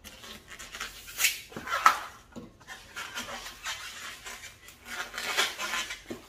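Latex 260 modelling balloon squeaking and rubbing under the fingers as its end is twisted and tied in a knot, with louder squeaks about a second in, about two seconds in and near the end.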